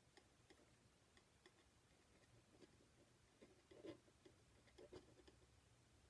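Near silence over a low room hum, with faint light taps and short scrapes of a palette knife laying oil paint onto a painting panel, a little stronger about four and five seconds in.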